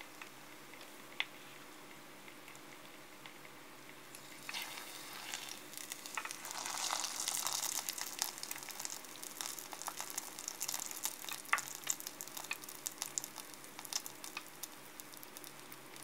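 Tempura-battered green shiso leaf deep-frying in vegetable oil. Quiet at first, a dense crackling sizzle builds about four seconds in, peaks a few seconds later, then thins to scattered pops.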